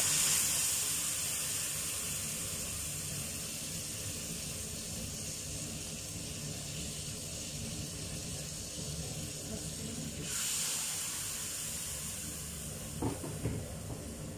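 Water poured into a hot wok of frying spice paste hisses and sizzles at first, then settles into a steady hiss. The hissing swells again about ten seconds in.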